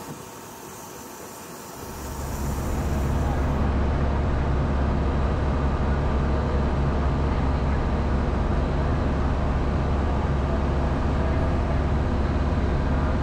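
Airport apron bus driving, heard from inside: a steady low engine and road rumble that comes up about two seconds in, after a quieter hiss.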